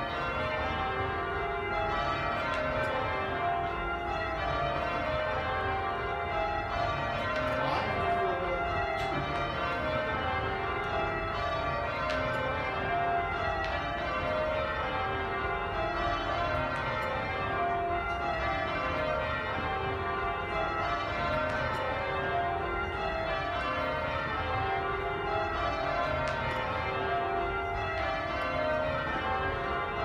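Change ringing on Buckfast Abbey's Taylor-cast bells, heard from the ringing chamber below them. The full-circle bells strike in even rows that each step down the scale, one row after another without a break.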